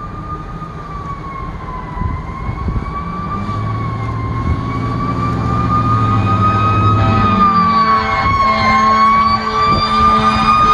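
Fire truck siren wailing slowly up and down, getting steadily louder as the apparatus approaches, with the truck's heavy engine running underneath.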